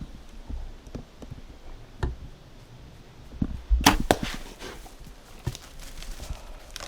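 A compound bow shot about four seconds in: one sharp loud snap as the arrow is released and strikes, followed by a quick flurry of knocks and rustling.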